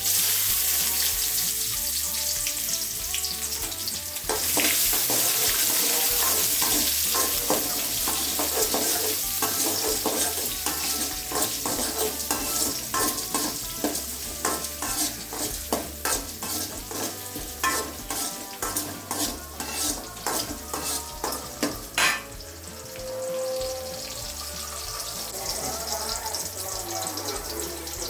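Food frying and sizzling in hot oil in a pan while it is stirred, with many sharp clicks and ticks. The sizzle starts suddenly, gets louder about four seconds in, and falls to a softer sizzle after a loud click near the end.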